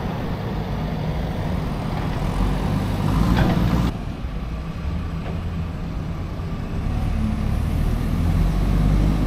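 Motor vehicle engine running with road noise: a steady low hum. The sound changes abruptly about four seconds in.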